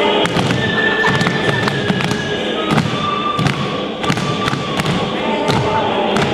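Irregular thumps and knocks, several a second at times, over a few steady tones that are each held for a second or two.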